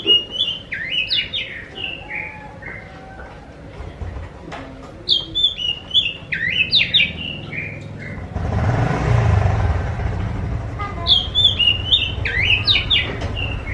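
Oriental magpie-robin (kacer) singing three loud phrases of quick whistled notes, mostly falling in pitch, with pauses of a couple of seconds between them. Between the second and third phrases, a rushing noise with a low rumble swells and fades, and a low hum stays under the last phrase.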